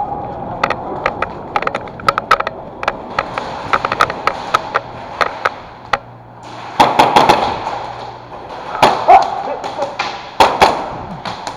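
Airsoft gunfire: irregular sharp cracks and pops, with denser, louder stretches about seven, nine and ten and a half seconds in.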